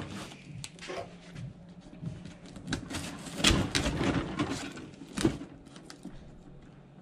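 A sealed cardboard box handled and turned over by gloved hands: scattered scrapes, taps and light thumps of cardboard, the loudest about three and a half seconds in and again a little after five seconds.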